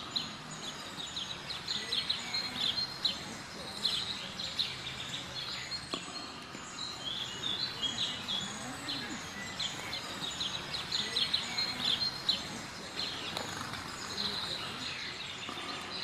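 Many small songbirds chirping and twittering in a rapid, continuous chorus of short high notes, over a steady background hiss.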